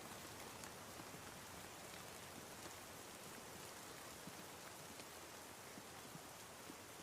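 Faint, steady rain: an even hiss with scattered light drop ticks.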